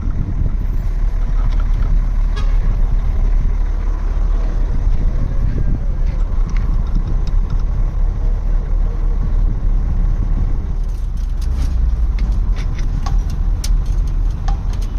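Vehicle engine running with a steady low rumble. From about eleven seconds in, a run of sharp, irregular clicks is heard over it.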